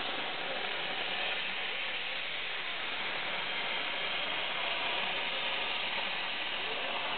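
Torchmate CNC plasma cutter cutting 14-gauge steel: a steady hiss from the plasma torch, with faint whines from the machine's motors that rise and fall in pitch as the torch follows the curves.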